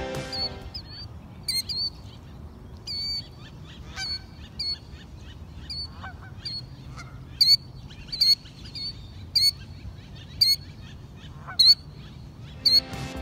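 Killdeer calling: short, shrill, high-pitched notes, scattered and fainter at first, then louder and repeated about once a second through the second half.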